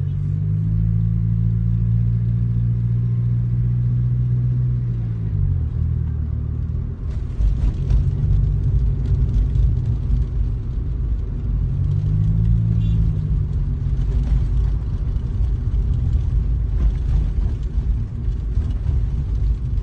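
Car driving, heard from inside the cabin: steady engine hum and low road rumble. The engine note drops about five seconds in, and briefly rises and falls again past the middle, while the rumble grows louder after the first drop.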